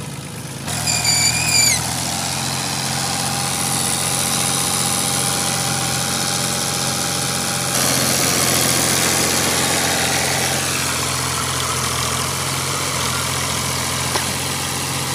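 Fiat 480 tractor's three-cylinder diesel engine running steadily.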